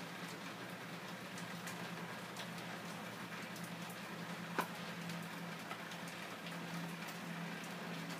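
Room tone: a steady background hiss with a low hum and scattered faint ticks, and one sharper click about four and a half seconds in.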